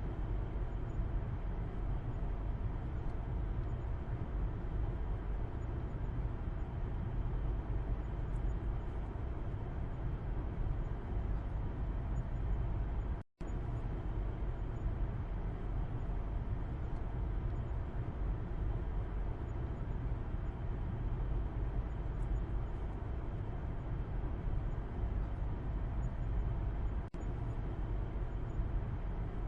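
Car interior road noise heard from the back seat: a steady low rumble of tyres and engine while driving. The sound cuts out for a split second about thirteen seconds in.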